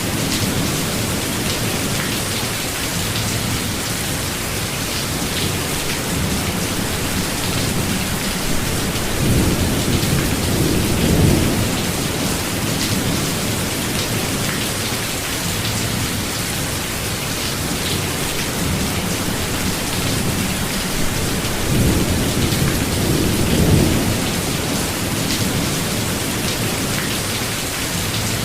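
Steady rain falling, with low rolling thunder that swells twice, about a third of the way in and again a few seconds before the end.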